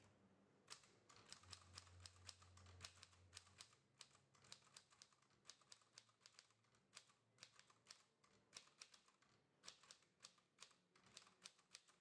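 Keys of a vintage Smith-Corona manual typewriter being typed on: a faint, quick, uneven run of typebar strikes, several a second, starting about a second in and stopping just before the end.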